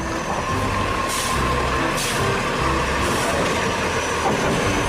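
Truck engine running steadily, with a few short hisses like air-brake releases.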